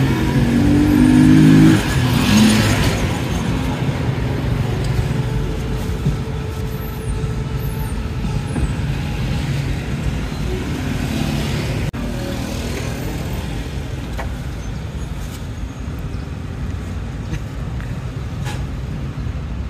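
Steady street traffic: cars and motorbikes running past close by, with one louder vehicle sounding a pitched tone in the first two seconds.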